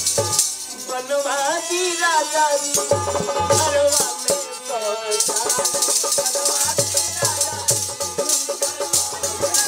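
A woman singing a folk song into a microphone, backed by tambourines jingling on the beat and a low drum that comes in about three seconds in.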